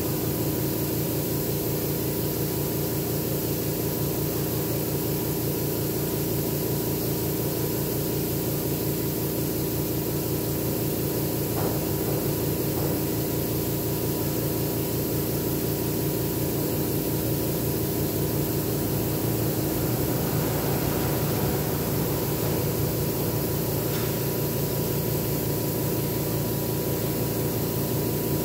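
Air compressor feeding an airbrush, running steadily: a continuous hum with a fast, even pulse underneath and a steady hiss over it.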